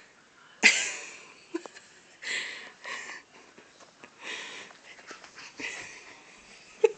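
A run of short, airy puffs and rustles about a second apart, made right at the phone's microphone by a toddler in a plush giraffe costume pressing up close to it.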